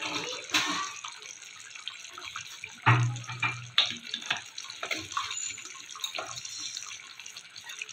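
Thick fish-curry gravy simmering in a pan, bubbling with irregular small pops and plops, with a short low thump about three seconds in.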